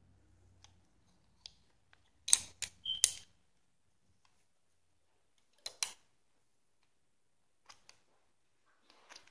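Sharp clicks and clacks of small hard objects on a hard surface, in short clusters: three loud ones about two to three seconds in, a pair near six seconds, a pair near eight, and a few softer ones near the end. A faint low hum stops about three seconds in.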